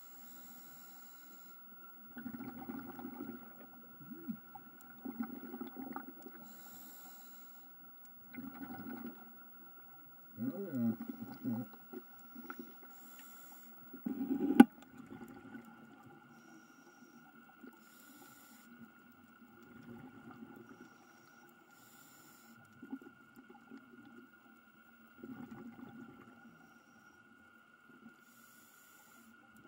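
Scuba diver breathing through a regulator underwater: short hissing inhalations alternate with longer bubbling exhalations every few seconds. A faint steady tone runs underneath, and a sharp click comes about halfway through.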